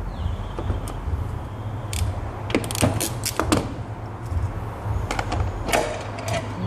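Scattered sharp clicks and knocks of car interior trim being worked with a plastic pry pick, in two clusters, over a steady low rumble.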